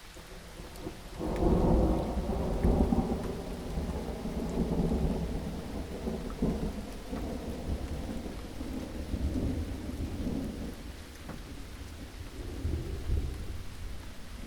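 Steady rain falling, with a roll of thunder that breaks in about a second in, rumbles on with several swells and slowly dies away, rising briefly once more near the end.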